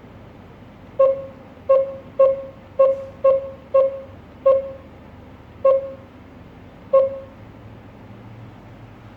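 GSM alarm control panel keypad beeping as its buttons are pressed: nine short, identical beeps at uneven intervals, bunched in the first half and then spreading out.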